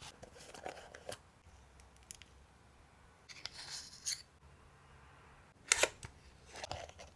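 Close, quiet handling sounds: a metal palette knife scraping and spreading white paste on a small glass plate for about a second, then two sharp clicks and taps as a pink cardboard ink box is handled and opened.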